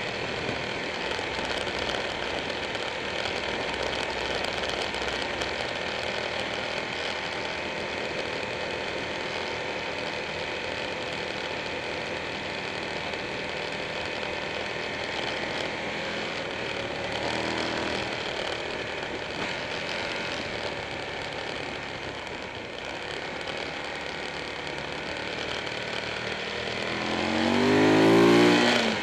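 Motorcycle engine running at road speed, mixed with steady wind rush, from a bike-mounted camera on a Buell 1125R's V-twin. The engine revs up briefly a little past the middle, and again more strongly near the end, where it rises in pitch to the loudest point before dropping back.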